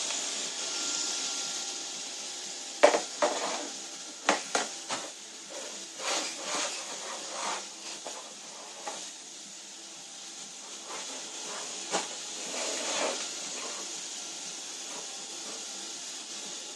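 Robot vacuum cleaner running with a steady hiss, with irregular knocks and clatters over it, the loudest about three seconds in.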